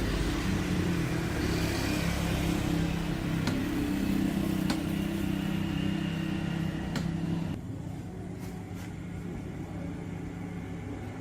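An electric motor running steadily with a loud hum and rushing noise, a few sharp clicks over it; a little over seven seconds in it drops noticeably quieter and thinner while the low hum goes on.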